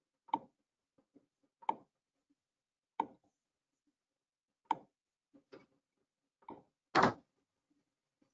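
Computer mouse clicks, single and scattered, about one every second or so, with a louder, longer knock about seven seconds in.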